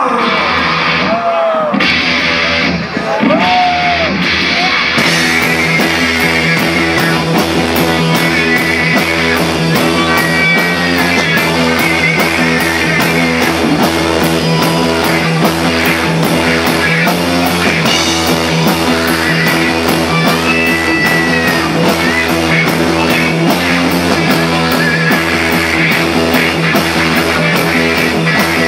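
Live rock band playing loud with electric guitar, bass guitar and drums, the guitarist singing a line over the first few seconds. From about five seconds in the drums lay down a steady cymbal beat under the guitar.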